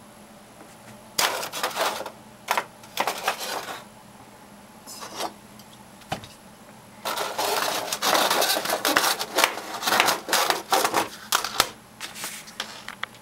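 Thin metal plates of a hinged folding camping-stove windscreen clattering and clicking against each other as the panels are folded together. It comes in several short bursts, with the longest run of rattling in the second half.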